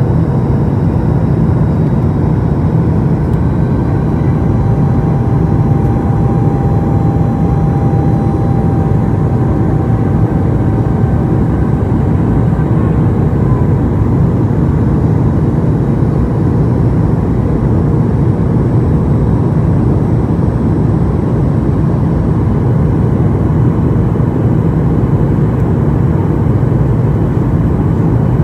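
Cabin noise inside a Boeing 737 MAX 8 airliner in descent: a steady low rush of airflow and engine noise, with a faint whine running through it.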